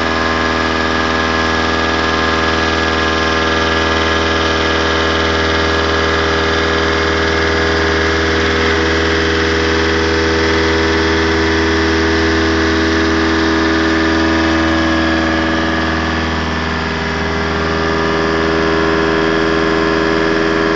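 Bragonzi T130 CNC boring mill contour-milling a hole in welded steel with a 50 mm cutter, spindle at 1250 rpm: steady machining noise over a low motor hum and several steady tones. The level dips briefly about 17 seconds in.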